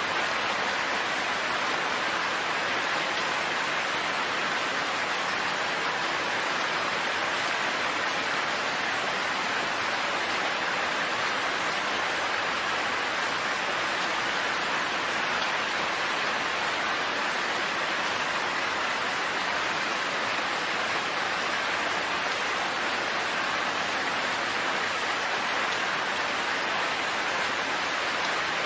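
Steady rain falling: an even, unbroken hiss with no thunder and no change in strength.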